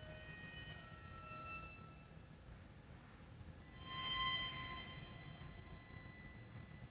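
Viola and cello playing a quiet, sparse passage of contemporary chamber music: thin, high sustained bowed notes. About four seconds in, a louder high note swells, then fades away.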